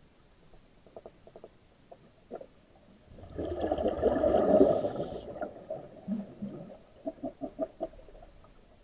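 Scuba diver exhaling through a regulator underwater: a loud bubbling rush of exhaust bubbles about three seconds in, lasting a couple of seconds. Soft clicks and pops come before it and near the end.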